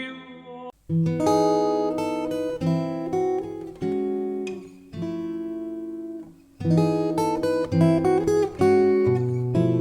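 Background music: acoustic guitar playing plucked and strummed chords. It begins about a second in and pauses briefly between phrases.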